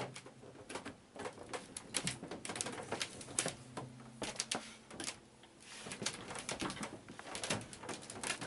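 Irregular light clicks and taps, several a second, from handling and footsteps on a wooden floor.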